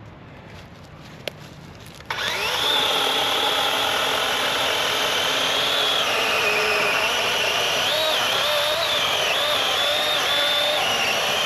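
Electric chainsaw starting about two seconds in with a quick rising whine, then running at a steady high whine. From about halfway its pitch dips and wavers as the chain cuts through a fallen softwood log.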